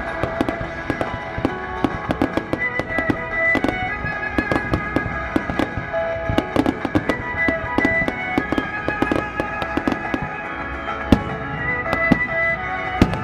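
Fireworks going off in many rapid, irregular pops and crackles, over accompanying music with long held melodic notes.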